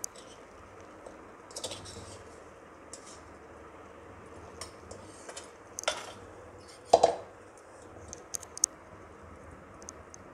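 Steel spoon scraping and clinking against a steel kadai while scooping out stuffing, in scattered short strokes. A louder metal clunk comes about seven seconds in.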